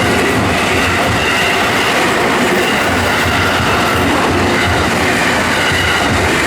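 A JR Kobe Line train passing the level crossing: a loud, steady rush of wheels on rails with a thin high ringing over it.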